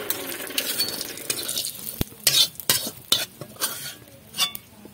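Cumin seeds sizzling in a little oil in a metal kadai, the sizzle fading over the first second or two. Then a metal stirrer scrapes and taps against the pan in a string of sharp clicks.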